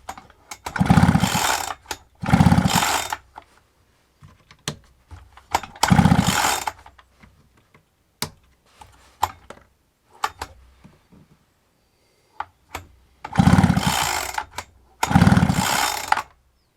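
Husqvarna 365 X-Torq chainsaw's recoil starter cord pulled five times, about a second each, the engine turning over but not firing, with small clicks between pulls. No spark shows at the plug.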